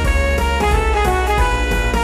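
Background music: a jazzy blues track with brass over a steady drum beat.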